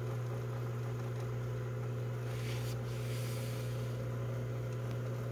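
Steady low hum with faint hiss from a JVC KD-V44 cassette deck playing a blank stretch of tape.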